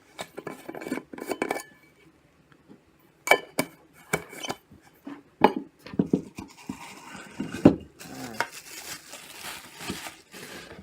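Stainless steel vacuum food jars being handled and unpacked: a string of sharp metallic knocks and clinks, with a longer stretch of rustling in the second half.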